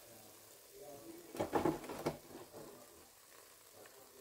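Crinkle-cut french fries in a deep-fryer basket, the hot oil giving a faint, steady sizzle as they finish cooking. A brief louder sound cuts in about a second and a half in.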